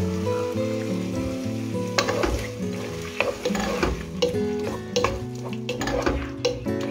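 Wooden spoon stirring and scraping through chicken, onion and garlic with tomato passata in a non-stick frying pan, with the food sizzling as it fries. From about two seconds in, the scraping strokes come in quick succession.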